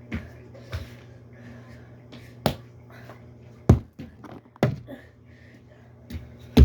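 Small toys being thrown and knocking against hard surfaces: half a dozen separate sharp knocks and thuds, irregularly spaced, the loudest near the end, over a low steady hum.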